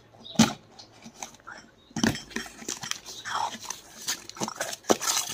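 Parcel being unpacked: plastic mailer packaging rustling and crackling as it is torn open and handled, with a few sharp knocks, the loudest about half a second in and again about five seconds in.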